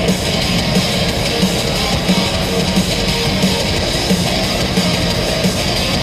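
Heavy metal music with distorted guitars and a steady, driving beat.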